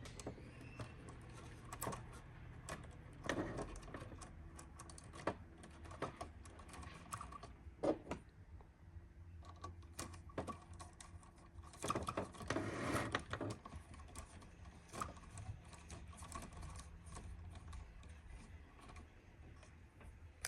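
Scattered small clicks and taps of a new screw and small tools being handled while the screw is threaded into the lower link and shock mount of a 1:12 RC crawler, with a few busier bursts of handling. A faint low hum runs underneath.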